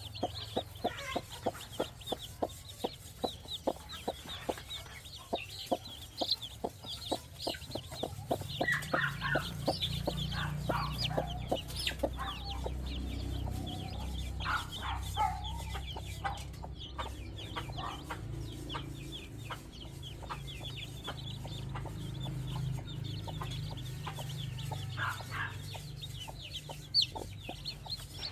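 Chickens clucking and peeping, many short high calls over each other, with a fast patter of small clicks in the first part. A low steady rumble joins about a third of the way in.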